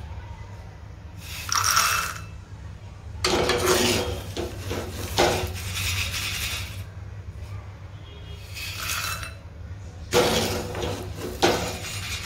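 Salt-roasted peanuts and hot salt rattling in a steel wire-mesh spider strainer as it is scooped through the salt in a kadhai, the salt sifting back through the mesh, with clinks of the strainer against the pan. It comes in several separate bursts, one per scoop.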